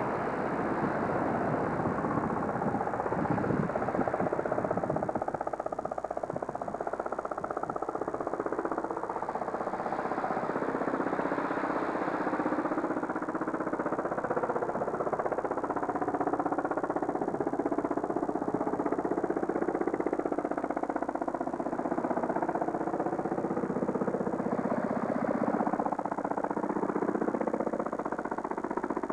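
A steady engine drone that holds at an even level throughout.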